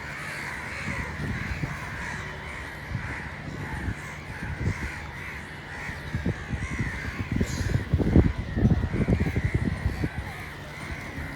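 A flock of crows cawing over one another in a continuous overlapping chorus. Low rumbling thuds sit underneath, loudest about eight seconds in.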